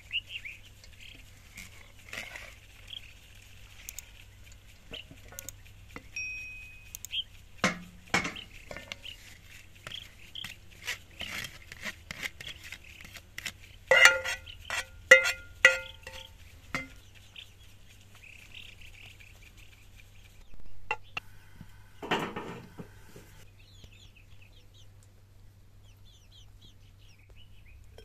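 A spatula and a pan clink and scrape against a pot of rice pilaf as it is dished up and sauced, with a loud run of ringing metallic clinks about halfway through. Chickens cluck and small birds chirp in the background.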